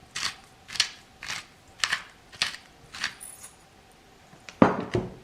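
Black pepper powder being shaken out of its container, with sharp rhythmic clicks about two a second, then a louder knock near the end.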